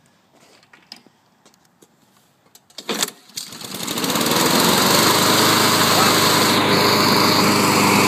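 Walk-behind lawn mower's Honda GC single-cylinder four-stroke engine being pull-started on choke. After a few faint clicks, the recoil cord is yanked about three seconds in and the engine catches at once. It builds to a steady, loud run by about four and a half seconds.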